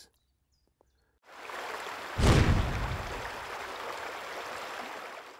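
Watery rushing sound effect under an underwater logo transition: a hiss builds in just over a second in, surges loudly with a low rumble about two seconds in, then holds as a steady rush that cuts off abruptly at the end.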